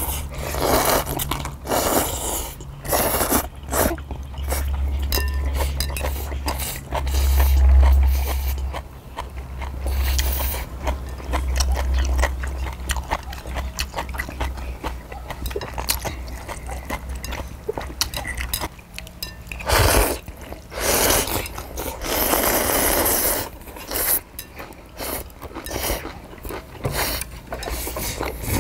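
Two people slurping and chewing instant jjamppong noodles in bursts, loudest near the start and about 20 and 22 seconds in, with short clicks of chopsticks on metal plates. A low rumble rises and falls under it, loudest about eight seconds in.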